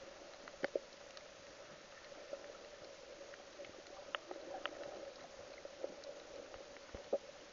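Muffled underwater sound picked up by a submerged camera: a faint steady hum under an even hiss, with scattered sharp clicks and crackles.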